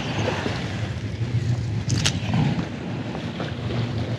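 Wind buffeting the microphone at the waterside over a steady low hum, with one sharp click about two seconds in.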